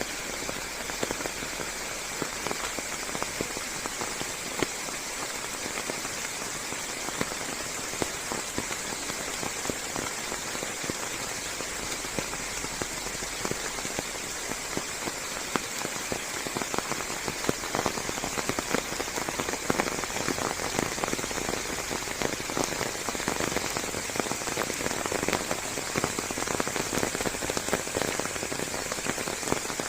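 Steady rain falling on forest leaves, a dense hiss full of individual drop impacts, which grow heavier about halfway through.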